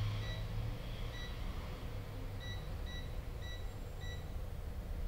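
Electronic test meter beeping during a diode-mode (reverse-conduction) check on a phone logic board: about seven short, high beeps at uneven intervals. A faint, steady low hum runs underneath.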